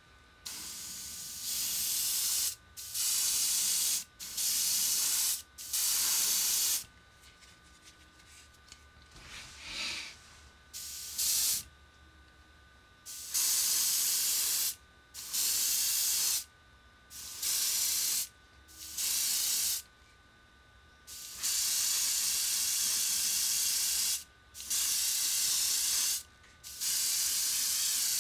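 Airbrush spraying Spectraflame paint in about a dozen bursts of hiss, each one to two seconds long, with a pause of a few seconds near the middle: the final heavy gloss coat going onto a die-cast car body.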